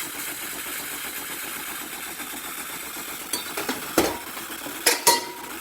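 DeLonghi Magnifica's vibratory pump buzzing steadily while the hot-water spout hisses and spits steam as the machine comes back to temperature after steaming. A few sharp clacks come between about three and a half and five seconds in.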